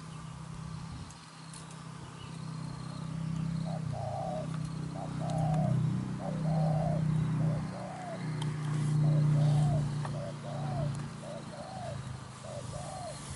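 Spotted doves cooing: a low, drawn-out cooing in long phrases, with a run of short arched coos about once a second from about four seconds in.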